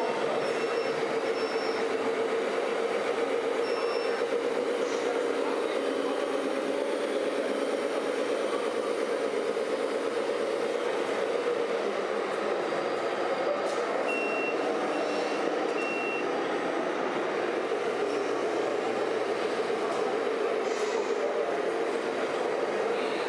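Scale RC truck's electronic sound module: a steady engine-like drone, with a reversing beeper giving short high beeps several times near the start and three times around two-thirds through.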